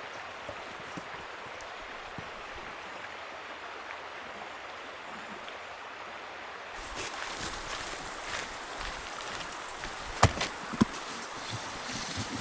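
Steady sound of flowing river water, which turns louder and brighter about seven seconds in. Near the end come a few sharp clicks and knocks from the lid of a plastic dog food container being handled.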